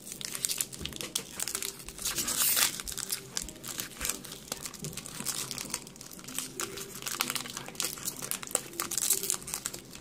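Foil wrapper of a Pokémon TCG Champion's Path booster pack crinkling continuously as it is handled and torn open, with a denser stretch of crinkling about two seconds in.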